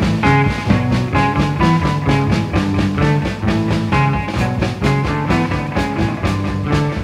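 Psychedelic heavy rock music: a full band playing with a steady drum beat and sustained pitched notes underneath.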